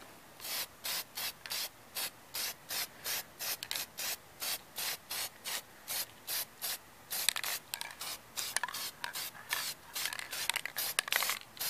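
Aerosol spray-paint can of gloss enamel hissing in short, even bursts about twice a second, then in quicker, uneven spurts over the last few seconds.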